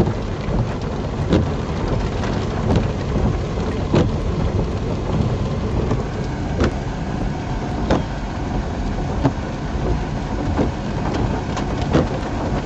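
Heavy rain on a car's roof and windshield heard from inside the vehicle: a steady patter with many sharper, irregular taps from larger drops.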